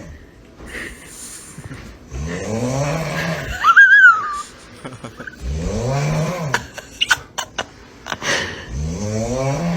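A person snoring heavily: three long, rasping snores about three seconds apart, each rising then falling in pitch. After the first, a short, high squeaky whistle, the loudest sound here, and later a quick run of sharp clicks.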